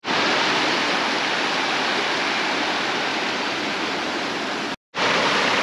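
Shallow mountain stream rushing over rocks, a steady roar of water, broken by a short silent gap near the end.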